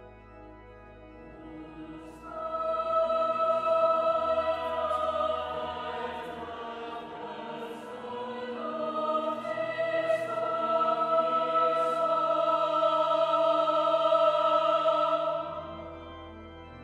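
Chapel choir singing long sustained chords over organ accompaniment. The voices come in about two seconds in and die away near the end, leaving the organ's low held notes.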